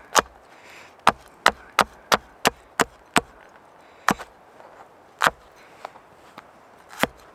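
A large blade chopping green bell pepper against a plastic cutting board. A quick run of sharp chops about three a second, then a few slower, spaced chops.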